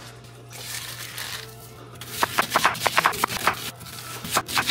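Onion skin being peeled off with a papery rustle, then a chef's knife chopping onion on a wooden cutting board: a quick run of knocks, several a second, starting about two seconds in.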